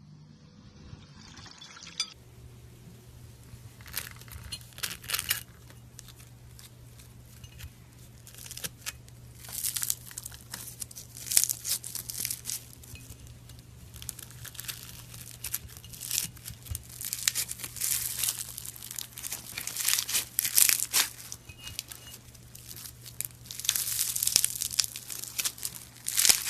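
Crinkly, crunching crackles of a crumbly material being squeezed and crushed, coming in irregular bursts over a low steady hum. The sounds start about two seconds in and grow denser toward the end.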